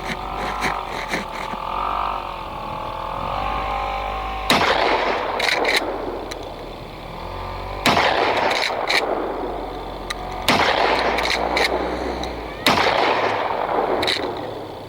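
Rock Island Arms All Generations 12-gauge pump-action shotgun fired four times, the first about four seconds in and the rest two to three seconds apart. Each shot has a long echoing tail.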